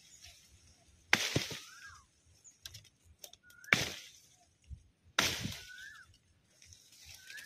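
Three sharp chopping strikes into wood, each followed by a brief crackle of snapping twigs and shaken leaves. A bird gives short rising-and-falling chirps between the strikes.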